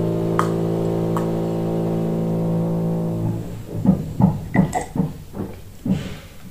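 A low, steady hum held on one note for about three seconds, then a quick run of gulps as a drink is swallowed from a glass.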